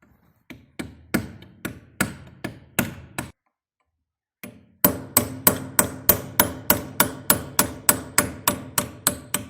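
Hammer blows on steel, each with a short metallic ring, knocking out a tight-fitting gas-joint (head seal) ring from a KamAZ diesel cylinder head. About eight blows, a pause, then a faster, even run of about three to four blows a second.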